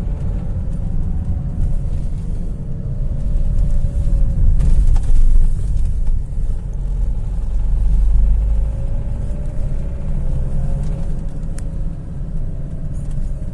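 Renault Kangoo II 1.5 diesel engine running with a heavy low rumble and a knock of unknown cause that the owner is trying to have diagnosed. A tone falls in pitch over the first few seconds and rises again past the middle, with a few sharp clicks.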